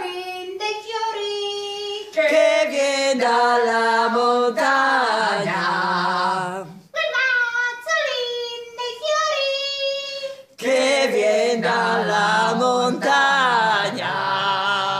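A voice singing a song with no instruments, in sung phrases broken by short pauses about seven and about ten and a half seconds in.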